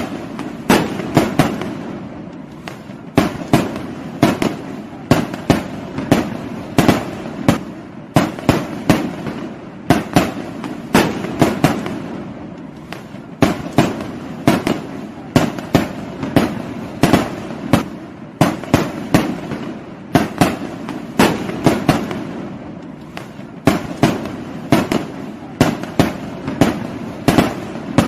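Fireworks going off: a continuous run of sharp bangs, about two or three a second at uneven spacing, over a steady noisy background between the bangs.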